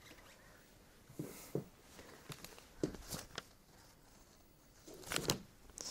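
A few faint rustles and small knocks from sheets of paper being picked up and handled at a desk, the loudest near the end.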